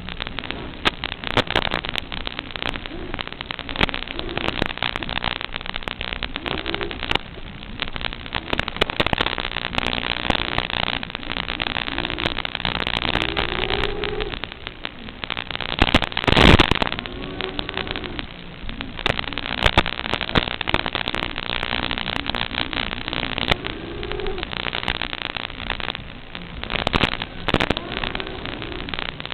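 Crackling, hissing static on the audio channel of an analog FPV video link, with many clicks, a louder burst of crackle about halfway through, and short wavering tones underneath.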